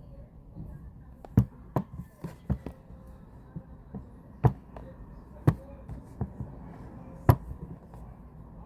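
A series of sharp knocks or taps at uneven intervals, about eight in all, the loudest near the start, in the middle and near the end.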